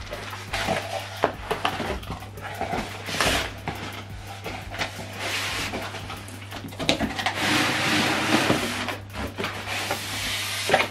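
Styrofoam packing and cardboard scraping and rustling as a foam-packed soundbar is slid out of its shipping box, with irregular knocks and clicks; the scraping is heaviest about seven seconds in.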